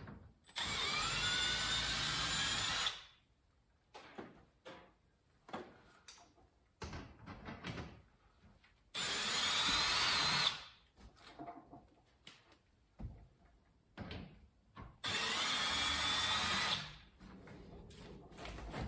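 Cordless drill backing screws out of sheet-metal stove pipe: three short runs, the motor pitch rising as it spins up. Light clicks and knocks between the runs.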